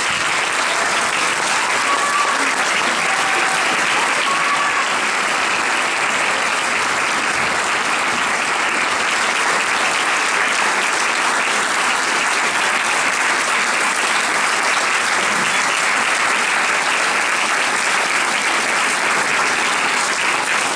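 Sustained applause from a large seated audience, steady and even throughout, as a talk ends.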